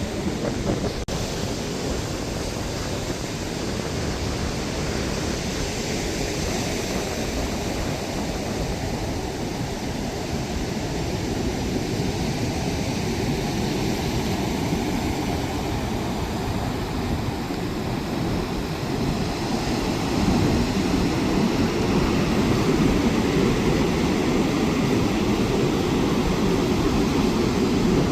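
Gulf surf washing onto the beach, with wind buffeting the microphone: a steady rush of noise that grows louder after about twenty seconds.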